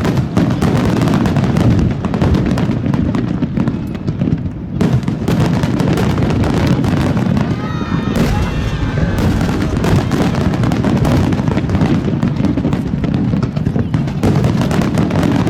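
Fireworks finale barrage: a rapid, unbroken run of shell bursts and crackling, loud throughout.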